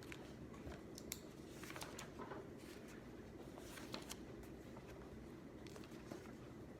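Faint desk sounds while studying: scattered light clicks and short scratches, like a pen or stationery being handled, over a steady low room hum.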